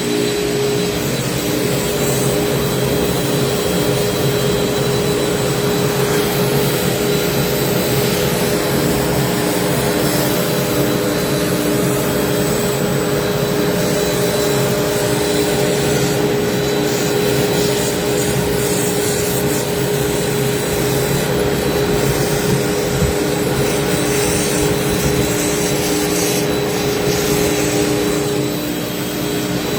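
CNC router running steadily as it cuts slot car track parts: a constant spindle whine over cutting noise, easing slightly near the end.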